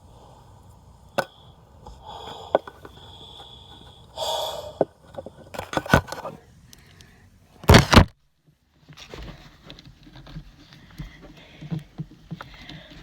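Handling noise from fitting a child car seat: scattered clicks and knocks of plastic and metal with patches of rustling. The loudest moment is a short, heavy rubbing burst about eight seconds in, after which the sound cuts out for about half a second before the low rustling resumes.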